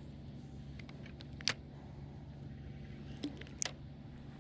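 A few sharp clicks from a spinning rod and reel being worked by hand, one about a second and a half in and two close together near the end, over a faint steady low hum.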